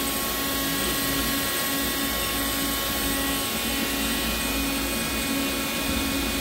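Hardinge GT27SP CNC gang-tool lathe running with its spindle turning at about 500 RPM: a steady mechanical hum with several constant whining tones over it.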